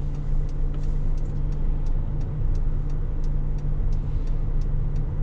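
Car engine idling at a standstill, with the turn-signal indicator ticking steadily, about three times a second.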